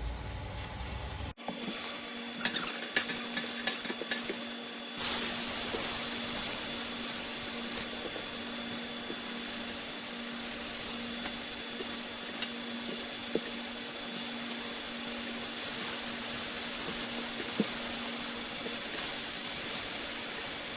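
Olive-oiled peach slices sizzling on a preheated indoor grill, a steady hiss that settles in about five seconds in, after a few light clicks.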